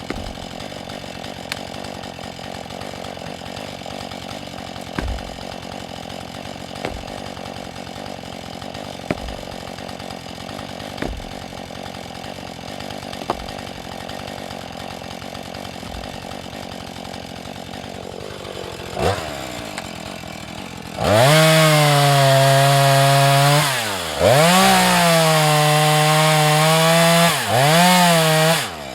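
Husqvarna 435 two-stroke chainsaw idling steadily with occasional clicks, then, about 21 s in, revved to full throttle and cut into wood in several short passes, its pitch sagging under load and recovering, before it drops back to idle near the end.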